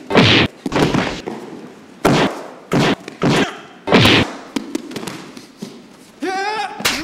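Fight impact sounds: a quick run of about six sharp punch and kick hits, each with a swishing smack, in the first four seconds. Near the end a person lets out a wavering cry.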